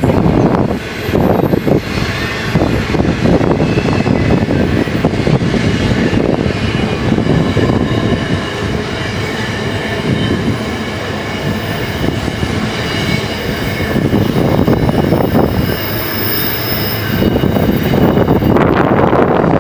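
Freight train wagons rolling past with a steady rumble and clatter of wheels on the rails. Through the middle stretch, high-pitched wheel squeal rides over it.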